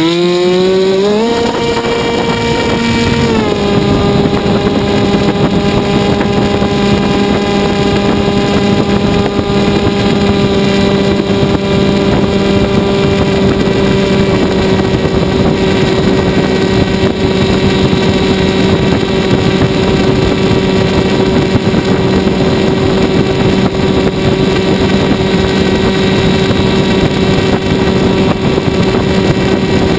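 Model airplane's motor and propeller, heard close from the onboard camera: it rises in pitch at full throttle on takeoff about a second in, eases back slightly a couple of seconds later, then runs at a steady high pitch in flight.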